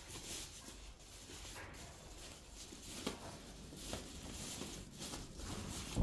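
Rustling of packaging and light handling of vacuum cleaner parts being unwrapped, with a couple of small clicks or knocks, one about three seconds in and one about a second later.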